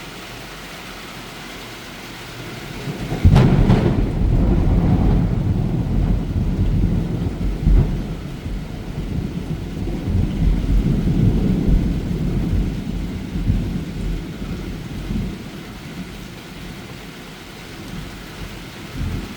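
Steady rain falling, then about three seconds in a sudden thunderclap that breaks into a long, rolling rumble, fading gradually over the next dozen seconds.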